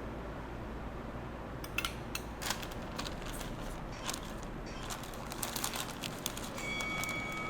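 Scattered light clicks and crackles over a steady low hiss, growing busier after about five seconds, with a faint steady tone coming in near the end.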